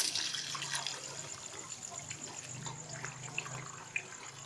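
Water trickling and dripping from a hydraulic ram pump test rig, fading away, with scattered faint drip ticks.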